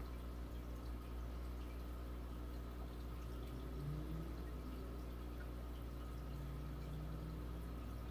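Aquarium filter running: a steady low motor hum with faint trickling, dripping water.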